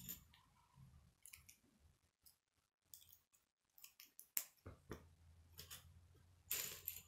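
Faint, scattered clicks of K'nex plastic pieces being handled and snapped together, the sharpest click about four seconds in and a short rasping burst near the end.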